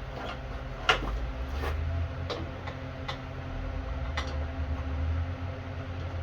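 Scattered sharp clicks and clinks of metal hand tools being handled, the loudest about a second in, over a steady low hum.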